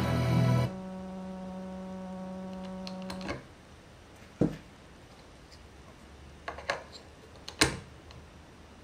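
Bowers & Wilkins Zeppelin speaker dock: music cuts off under a second in, leaving a steady electrical buzz through the speaker, the noise fault that appears only with an iPhone 4 docked. The buzz stops when the phone is pulled out about three seconds in, followed by a knock and a few plastic clicks of a player being seated in the dock, the loudest near the end.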